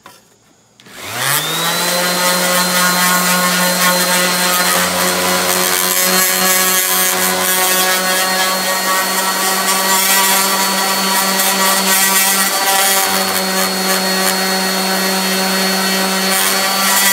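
Electric random orbital sander with 80-grit paper switched on about a second in, spinning up quickly to a steady hum, sanding paint off a thin rusted steel panel down to bare metal.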